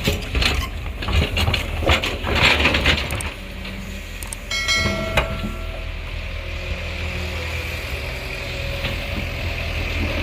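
Hydraulic excavator's diesel engine running under load, with rough clattering and scraping in the first few seconds. A short high squeal comes about four and a half seconds in, and then the engine settles to a steadier, smoother sound.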